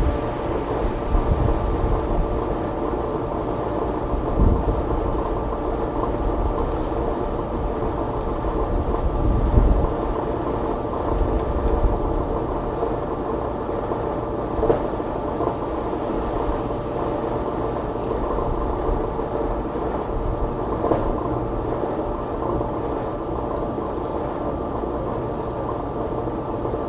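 Steady mechanical hum over a constant rushing noise, with a few brief low bumps.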